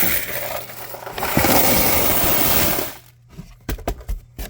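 Loose coins poured into a bin: a dense cascade of clinking for about three seconds, then a few last separate clinks as it trails off.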